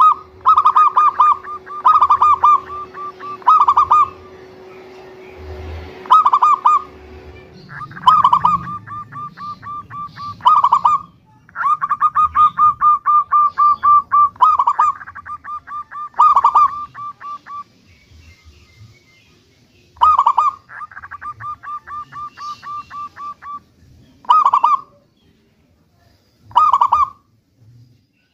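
Zebra dove (perkutut) cooing with a big voice: phrases of rapid staccato coos, each opening with a strong note and running into a quick series of short clipped notes, about every two seconds, with two longer runs of several seconds in the middle and later part.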